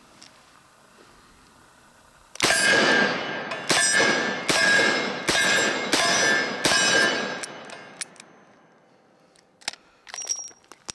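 Six shots from a Smith & Wesson 629 5-inch .44 Magnum revolver. The first comes alone, then the rest follow about two-thirds of a second apart. Steel plate targets ring after the hits. Near the end come a few light metallic clicks as the cylinder is swung open.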